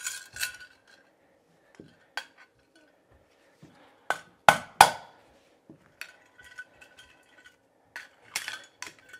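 Hammer striking a screwdriver held against a metal electrical box to punch out a knockout for a cable connector: three sharp strikes about four to five seconds in, among lighter metallic clinks and ringing from the box and tools.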